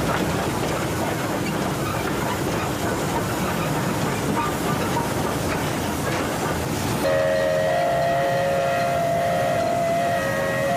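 Steam locomotive running with a steady noise, then its whistle sounds about seven seconds in: a long, steady blast of two close notes that is still going at the end.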